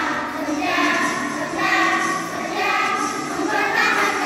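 A children's choir singing together, holding and changing sung notes.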